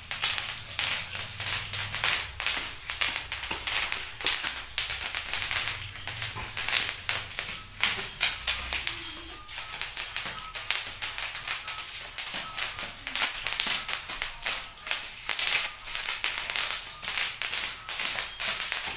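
Bubble wrap popping under bare feet as children walk and stamp across it: a rapid, irregular run of sharp pops and crackles.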